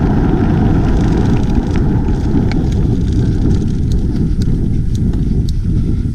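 Wind buffeting a GoPro Hero 5's built-in microphone at riding speed on a mountain bike, a loud, dense rumble with a few faint ticks over it. This is the Hero 5's heavy wind-noise pickup when mounted on a Karma Grip gimbal.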